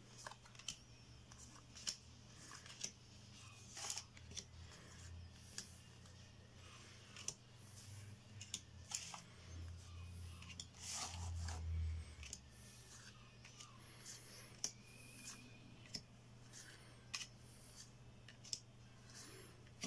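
Yu-Gi-Oh trading cards being handled: short clicks and snaps at irregular intervals of about a second as cards are slid off a deck and laid on a playmat, over a low steady hum.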